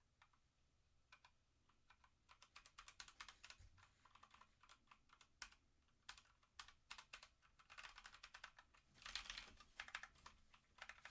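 Faint key presses on a Motospeed CK61 60% mechanical keyboard. Scattered single clicks give way to quick runs of typing about two seconds in, with a dense flurry of keystrokes near the end.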